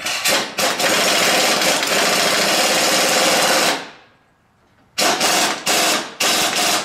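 Snap-on pneumatic impact wrench hammering a half-inch bolt tight on a rear track bar axle bracket: one long run of nearly four seconds, then, after a pause, three short bursts.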